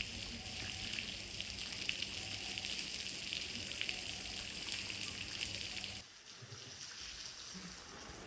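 Duck meat frying in hot fat in a cauldron: a steady sizzle with many small crackles and pops. It drops suddenly in level about six seconds in.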